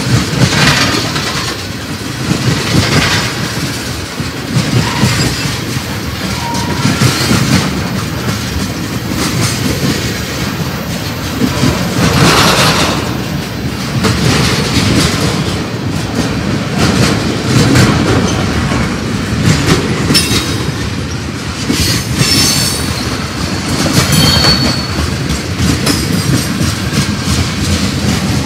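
Freight cars rolling past close by: a steady rumble of steel wheels on rail with rhythmic clacking as each set of wheels passes. Brief high-pitched wheel squeals come in near the end.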